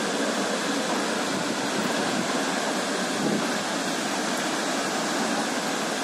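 High waterfall pouring over a cliff into a gorge: a steady, even rushing noise of falling water.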